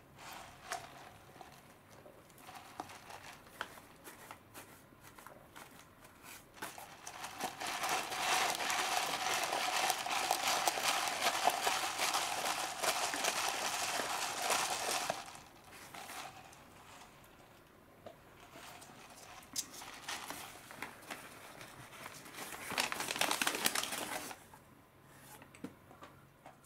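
Paper food wrapper crinkling and rustling as it is handled, in spells with quieter gaps, the longest and loudest spell in the middle.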